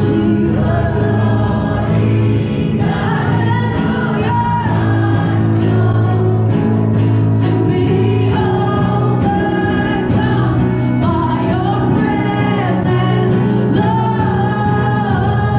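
A worship song sung live: a woman leads the melody on a microphone with others singing along, over steady accompaniment with a violin.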